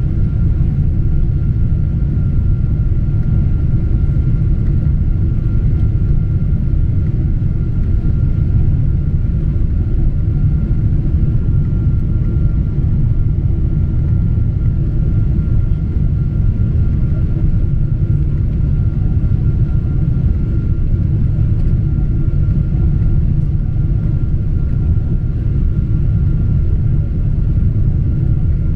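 Cabin noise inside a Boeing 777-200 airliner on final approach: a steady, loud low rumble of engines and airflow, with a thin steady tone above it.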